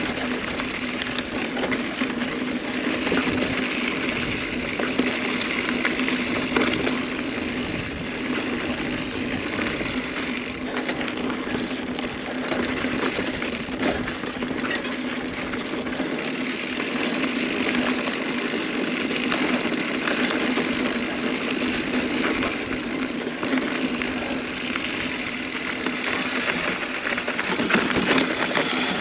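Mountain bike riding down a loose dirt trail. The tyres roll over gravel and rock, and short rattles and knocks come from the bumps, all over a steady hum.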